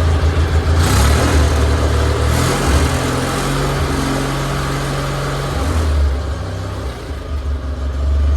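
Gravely tractor's Onan CCKA opposed-twin engine running while the tractor is driven off to be parked, its engine note shifting a couple of times.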